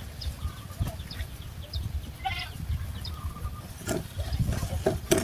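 A goat bleating once, about two seconds in, among short high chirps, with a few knocks near the end.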